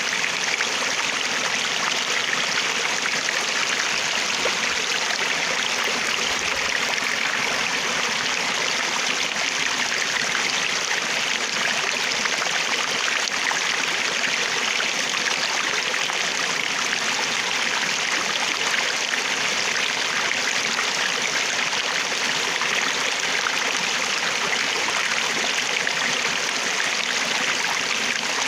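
Flowing water, a steady, even rushing with no pauses or changes.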